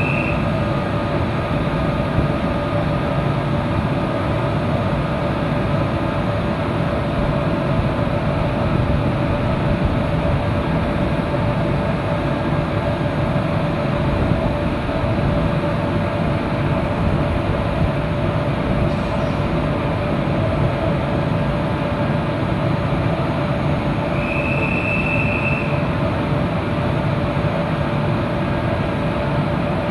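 Passenger train hauled by an electric locomotive, running steadily with a continuous rumble and faint steady whining tones. A short high tone sounds twice, right at the start and again about 24 seconds in.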